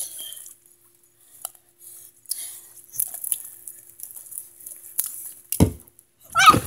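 Scattered drips and small taps close to the microphone as a wet swimmer moves over it, then a dull thump about five and a half seconds in as he hauls himself out onto the pool edge. A brief voice sound comes near the end.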